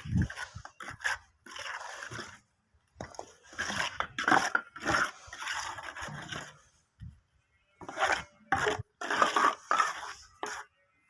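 Scraping and rubbing noises in irregular bursts of about half a second to a second, with short pauses between them.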